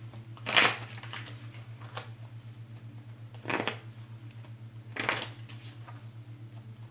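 Tarot cards being handled: three short rustling swishes of cards, about half a second, three and a half and five seconds in, over a steady low electrical hum.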